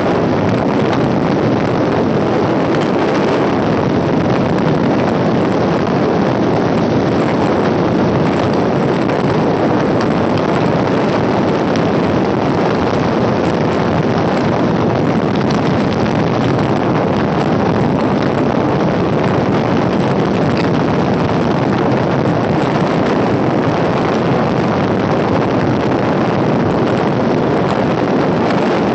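Electric multiple unit local train running at speed, heard from an open window: a loud, steady rush of wheels on the rails mixed with wind buffeting the microphone.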